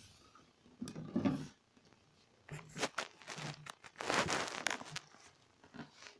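Rustling, scraping handling noise in several short bursts, from a phone being moved about close to a clear plastic hamster ball and the hand touching it.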